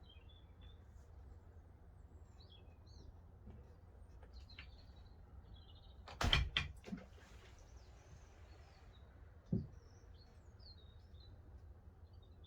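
Birds chirping in the background. About halfway through comes a quick cluster of sharp knocks and clatter, then a single knock a few seconds later.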